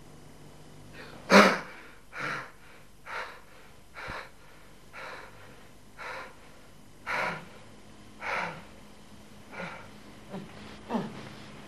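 A young man breathing heavily in sharp, separate gasps, about one a second, the first the loudest. Near the end the breaths gain voice and fall in pitch, like short moans.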